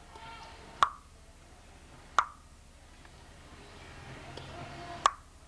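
Three sharp knocks, each with a brief ringing tone, about a second, two seconds and five seconds in.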